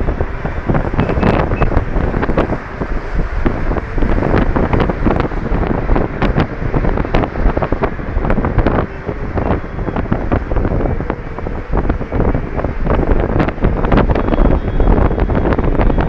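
Wind buffeting a phone's microphone: a loud, continuous rushing noise full of crackling gusts.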